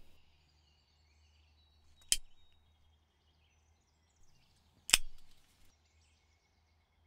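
Metal flip-top lighter clicking: three sharp clicks, the second about two seconds after the first and the third about three seconds after that, as the lighter is opened and struck to light a cigarette.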